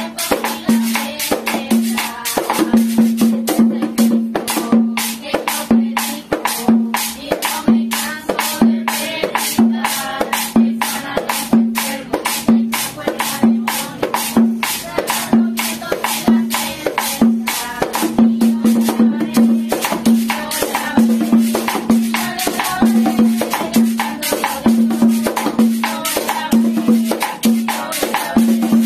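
A family singing a Spanish-language gospel chorus together, accompanied by a goblet-shaped hand drum struck with the palms in a steady beat and a cylindrical scraper (güira-style) rasped with a stick in fast, even strokes.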